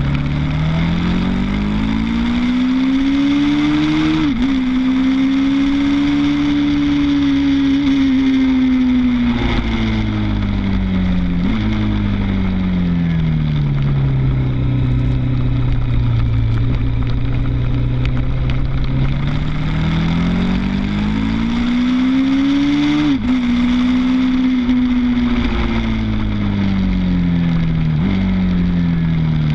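Suzuki TL1000's V-twin engine on a track lap: the revs climb to an upshift a few seconds in, hold, then fall away with stepped downshifts, run low and steady through a long stretch, and climb again to another upshift about two-thirds through before dropping back with downshifts near the end. Wind rushes over the bike throughout.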